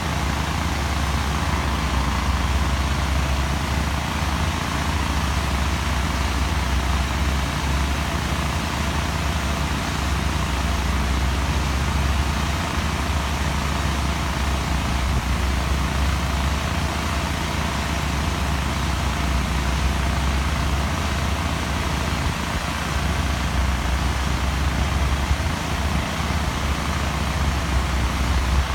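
Steady low rumble of heavy construction machinery running on a quarry work site, with no distinct knocks or changes.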